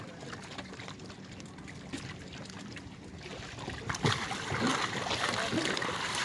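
Water lapping and splashing around small wooden fishing boats, a noisy wash with small knocks that gets louder about four seconds in.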